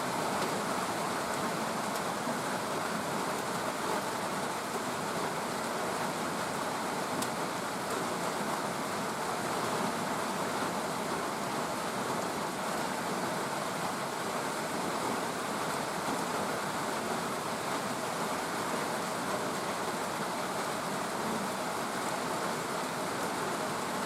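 Steady rain falling, an even hiss of rainfall with a few faint drop ticks.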